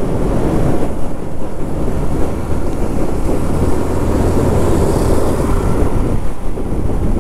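Wind rushing over the microphone at riding speed, with a motorcycle engine running underneath. The noise stays steady throughout.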